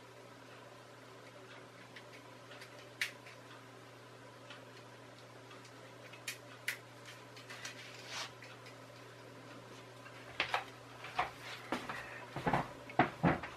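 Scattered faint clicks and taps over a steady low hum, the taps coming thicker and louder in the last few seconds.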